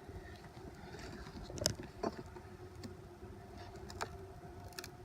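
Honeybees buzzing around an opened hive, with a few sharp clicks and knocks of a hive tool and wooden frames being worked in the box, about four in all; the frames are glued fast.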